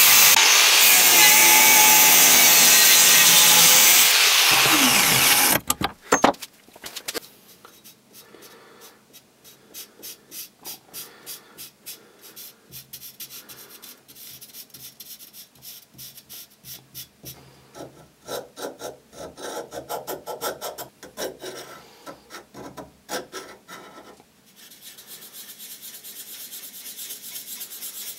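An angle grinder with a cut-off disc cutting through a steel plate, falling in pitch as it spins down about five seconds in. A metallic clank follows, then a long run of quiet, short scratching strokes as a felt-tip marker is rubbed along the steel's edge and face.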